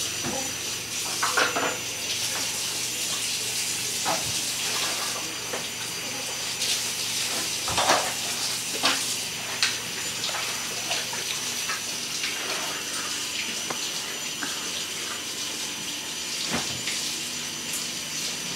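A steady hiss with scattered light taps and clicks.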